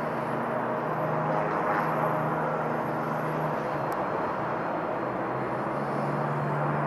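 Jet engines of an Emirates Boeing 777 landing, heard across the airfield as a steady rushing noise with a low hum underneath.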